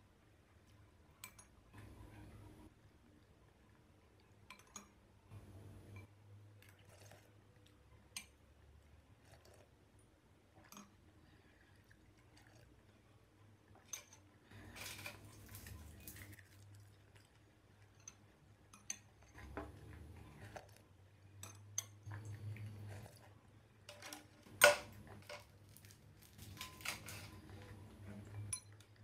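A metal spoon clinking and scraping against a glass bowl as leftover noodle broth is stirred and spooned up, in scattered light clinks with one sharper clink near the end. Some quiet eating sounds come between the clinks.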